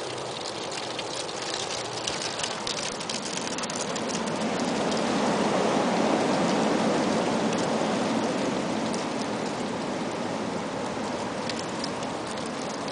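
Strong gusty wind blowing, swelling in a gust about halfway through, with a dry crackling patter in the upper range early on and again near the end.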